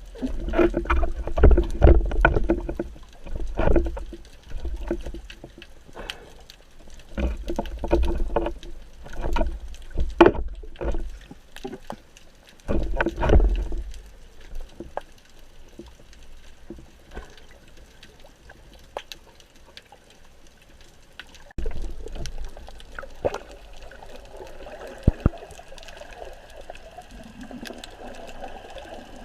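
Water sloshing and gurgling, with irregular surges and scattered clicks and knocks. It turns quieter and steadier after about fourteen seconds, with a single louder surge a little past twenty seconds.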